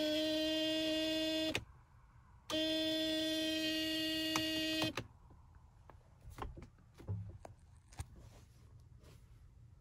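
Mercedes W124 dashboard warning buzzer sounding twice, each a steady tone lasting about two and a half seconds, while the light switch is worked; after it, a few clicks from the switch and handling.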